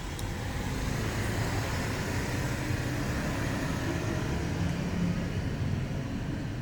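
Steady road traffic noise, a low rumble of passing vehicles.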